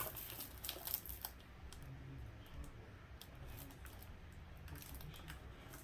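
Faint, irregular clicking of typing on a keyboard, a little busier in the first second or so.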